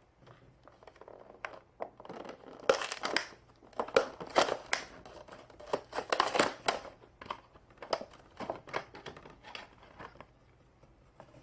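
Plastic packaging crinkling and crackling as it is handled, a dense run of irregular crackles that is loudest in the middle and dies away near the end.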